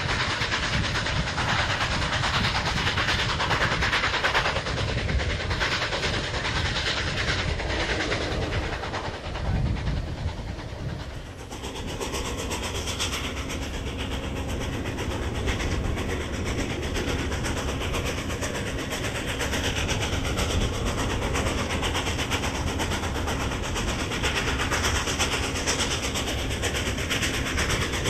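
Southern Pacific 4449, a 4-8-4 steam locomotive, working under way, heard from alongside the engine: exhaust from the stack with the running noise of the train on the rails. The sound changes abruptly about a third of the way through, where one recording cuts to another.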